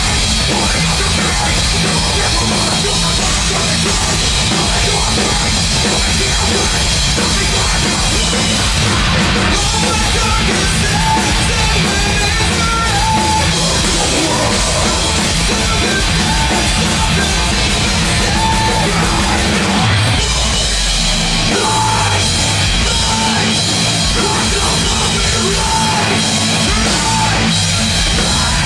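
Metalcore band playing live at full volume: distorted electric guitars, bass and drum kit, with a vocalist screaming into the microphone.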